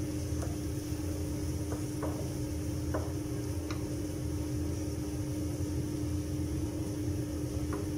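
A steady low mechanical hum with a constant tone, and over it a handful of faint taps of a wooden spatula against a nonstick frying pan as minced pork is stirred.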